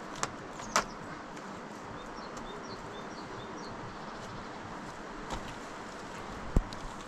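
Steady outdoor background noise with a few sharp knocks, the loudest a heavy thump near the end, and a short run of high chirps in the middle.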